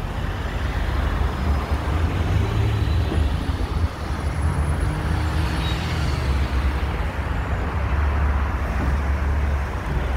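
Road traffic: cars, vans and a small truck running on a city street, a steady noise with a deep rumble.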